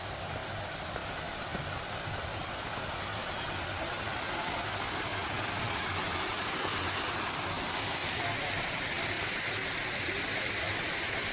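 Steady rush of falling water from a waterfall, growing gradually louder.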